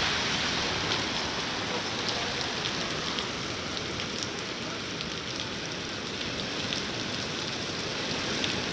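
Heavy rain falling steadily: a dense, even hiss with scattered sharper drop ticks.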